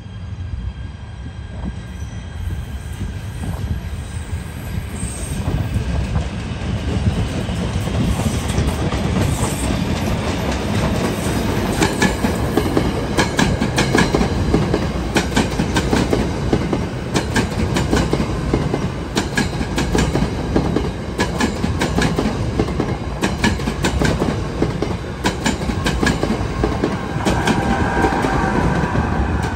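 A train passing close by, growing louder over the first several seconds and then holding a steady heavy rumble. Through the second half its wheels click over the rail joints in quick clusters.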